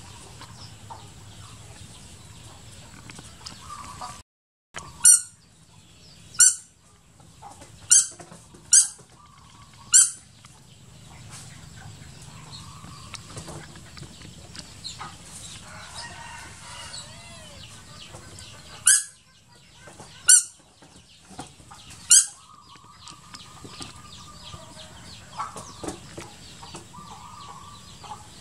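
Short, loud, shrill animal squawks: five in quick succession, then three more after a pause, over a steady low hum.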